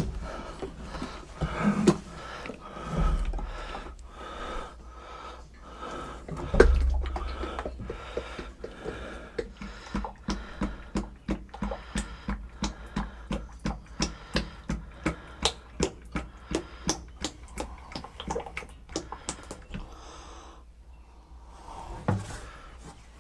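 Oil glugging out of a tipped 5-gallon bucket into the rear-end fill hole of a 1975 Ford 550 backhoe, a quick even rhythm of about three glugs a second that fades out near the end. A couple of dull thumps in the first few seconds as the bucket is brought into place.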